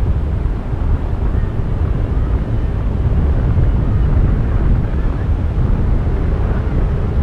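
Wind buffeting the selfie-stick camera's microphone in paragliding flight: a steady, loud, low rumble of airflow.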